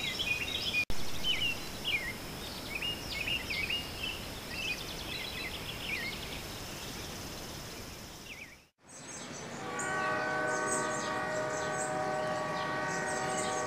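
Birds chirping over a steady high hiss, broken off by a sudden cut about eight and a half seconds in. Then a long, steady chord of several held tones sounds, with faint chirps above it.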